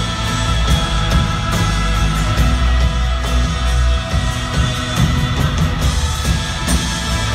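Live band playing loud rock-style music, with strong bass and a continuous full sound.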